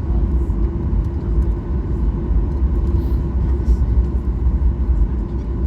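Boeing 737-800 cabin noise on the ground after landing: a steady low rumble with a constant hum.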